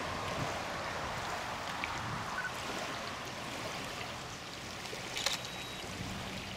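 Steady wind noise on the microphone and water lapping, an even hiss with a low rumble, with one sharp click about five seconds in.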